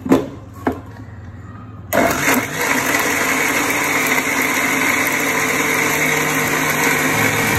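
A couple of short knocks, then about two seconds in an Indian mixer grinder (mixie) switches on and runs steadily at full speed, grinding wet coconut chutney with water in its jar.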